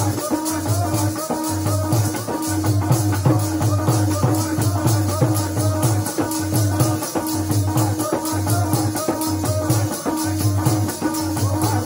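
Kirtan music without singing: a steady held note and a wavering melody over fast, even percussion strokes about five a second, with a repeating deep drum beat.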